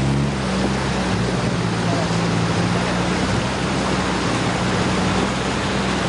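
Suzuki 4x4's engine running at steady revs while it drives through a fast river, with loud rushing and splashing water around the body.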